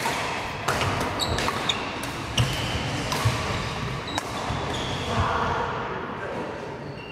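Badminton rally in a large echoing sports hall: sharp racket-on-shuttlecock hits every half second to a second, with short squeaks of shoes on the wooden court, over the hits and chatter of other courts. The hits stop after about four seconds and the hall noise carries on.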